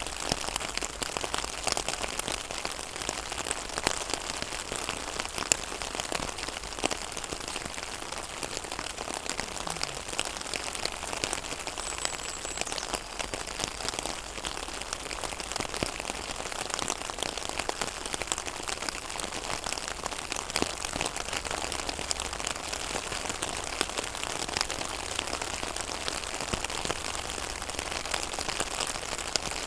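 Rain falling on a pond: a steady patter of many drops striking the water surface, with scattered sharper individual drips.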